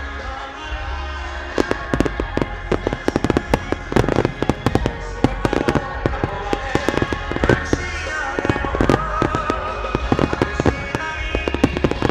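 Starmine fireworks: a dense, rapid run of shell bursts and crackle begins about a second and a half in and keeps going. Music plays steadily underneath.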